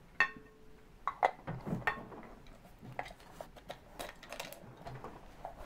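Excavated toy dinosaur bones clicking and clinking against a small glass jar as it is handled, a dozen or so irregular sharp clicks. The first click, just after the start, has a short glassy ring.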